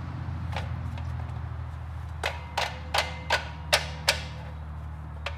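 Metal tools clinking against the flywheel of a small-block Chevrolet V8: a run of six sharp, ringing clinks over about two seconds midway through, and one more near the end. A steady low hum runs underneath.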